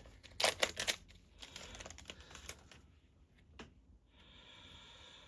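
Trading cards being handled and set down: a quick run of sharp clicks and taps in the first second, then softer rustling and scraping of cards, and a single tap a little past halfway.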